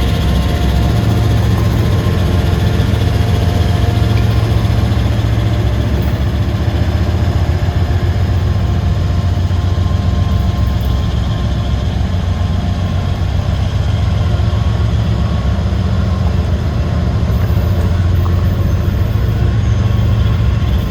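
Norfolk Southern freight train rolling past: a loud, steady low rumble with an engine-like drone, without a break.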